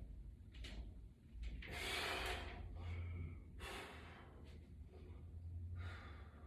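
A person breathing hard through a set of lying-down resistance-band presses: about four forceful breaths, the longest about two seconds in.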